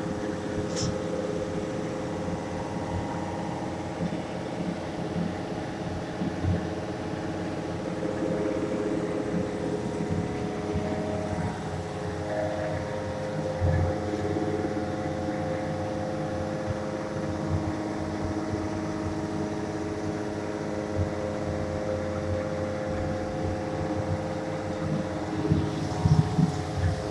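Steady mechanical hum with several fixed tones that hold unchanged throughout, with a few light knocks and a click over it.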